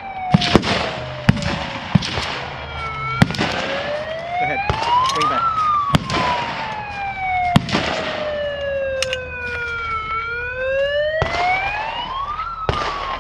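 A siren wailing slowly up and down, each rise taking about two seconds and each fall several seconds, with scattered sharp gunshots cracking across it.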